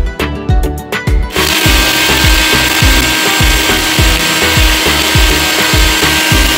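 A NutriBullet blender's motor starts about a second in and runs steadily, grinding whole spices into a powder. Background music with a steady beat plays under it.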